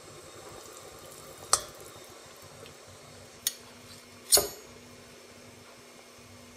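Three short, sharp clinks of metal cutlery, a fork against a steel saucepan and a knife and fork on a plate, the first about a second and a half in and the last and loudest just past four seconds, over a faint steady hum.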